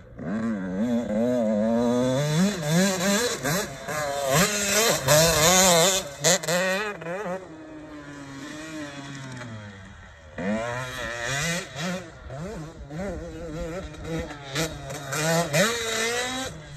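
Motocross dirt bike engine revving hard and backing off over and over as it is ridden, its pitch rising and falling with each throttle blip. For a couple of seconds in the middle it drops to a lower, quieter drone before the throttle opens up again.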